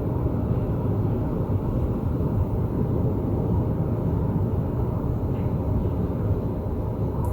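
Low, continuous rumble of rolling thunder.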